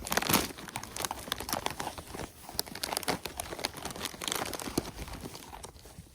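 A plastic bag of animal cookies crinkling as it is handled, with scattered irregular clicks and knocks as animals feed from it and move about.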